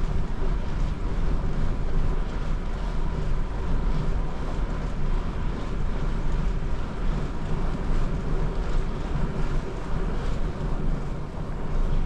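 Wind buffeting the microphone of a camera carried on a moving bicycle: a steady, low rumbling noise that rises and falls unevenly.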